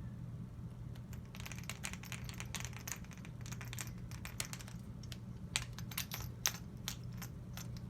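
Quick, irregular light clicks and taps of small rifle parts being handled and fitted by hand during work on a GSG AK-47 .22 LR, over a steady low hum.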